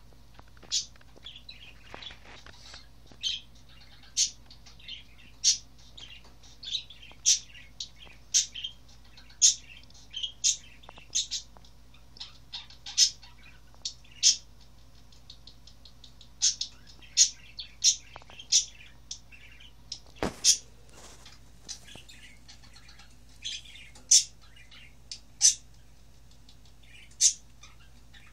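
Small bird chirping repeatedly: short, high, sharp chirps at an uneven pace of about one or two a second, over a faint steady low hum. A single sharp tap comes about two-thirds of the way through.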